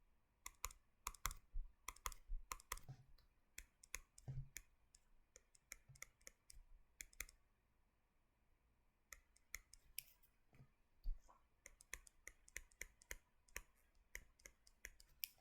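Faint, irregular clicking and tapping from drawing on a computer, coming in quick runs, with a pause of about a second and a half after about seven seconds.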